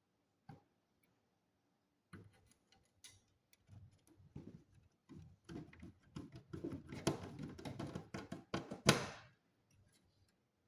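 Hands working on the inside of an all-in-one PC with small tools, making a single click and then a run of irregular clicks, taps and scraping of plastic and metal parts, with one sharp knock near the end.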